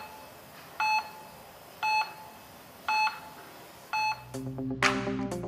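Heart-monitor beep sound effect: a single short high beep about once a second, four times. Electronic dance music with a beat starts about four seconds in.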